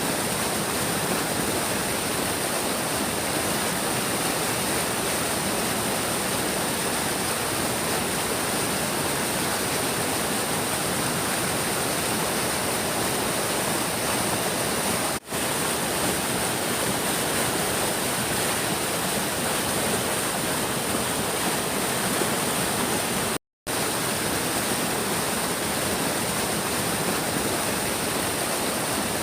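Big stream's water rushing steadily. The sound dips for a moment a little past the middle and cuts out completely for a split second about three quarters of the way through.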